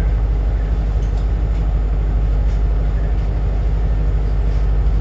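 City bus heard from inside the cabin while driving: a steady low engine and road rumble, with a few faint light ticks.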